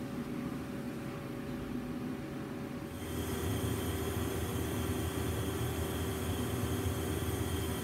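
Steady hum of running machine-shop equipment with several held tones. About three seconds in it gets louder, with a fuller low drone and a thin high whine.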